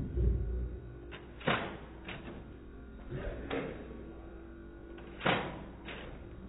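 About five sharp smacks spaced unevenly over several seconds, from a Nerf blaster firing foam darts at close range, with a low muffled rumble at the very start.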